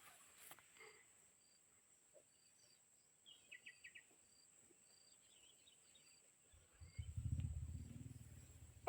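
Faint countryside insect chorus, a steady high cricket-like drone with short chirps repeating about twice a second, and a brief bird trill a few seconds in. About two-thirds of the way through, a loud low rumble rises and then fades.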